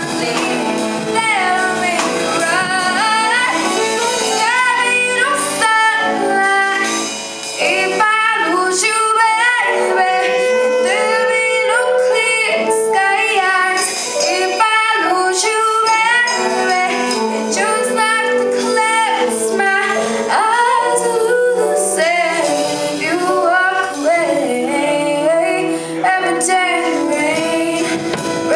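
A female lead singer singing a slow pop ballad, with backing singers, over a live band of piano, guitar, bass and drums.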